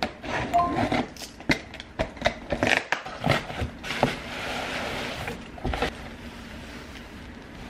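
Cardboard delivery box being torn open by hand: a run of sharp irregular scrapes, pops and creaks of tape and flaps, with a longer rustle about four seconds in as the contents in a fabric dust bag are pulled out.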